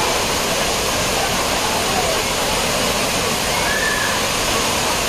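Courtallam Main Falls, a tall waterfall, pouring steadily onto the rocks and bathing area: a loud, even rush of water that never lets up.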